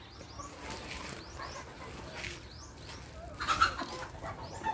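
Chickens clucking, with many short high chirps and one louder call about three and a half seconds in.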